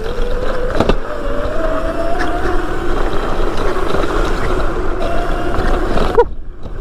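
Electric motor whine from a Razor MX650 pit bike converted with a 72-volt MY1020 motor, riding under power. The pitch climbs slowly as it gains speed, then drops away suddenly near the end as the throttle is let off, over a steady low rumble.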